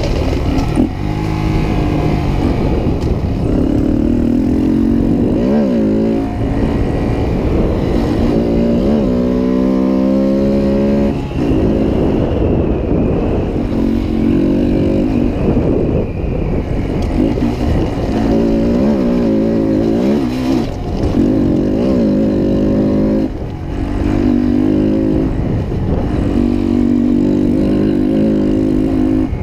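2019 Honda Monkey 125's single-cylinder engine, breathing through an aftermarket MNNTHBX intake, revving up and easing off again and again under way. The pitch climbs and drops every few seconds, with short dips in between as the throttle is rolled off.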